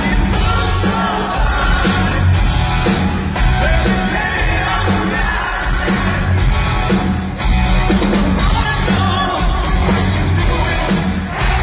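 Live rock band playing: a shouted-style lead vocal with a backing vocal over electric bass, guitar and drums.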